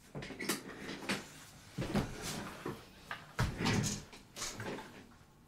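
Desk chair being pulled round and sat in: a string of soft knocks and rustles, the heaviest about two seconds in and again a little past three seconds.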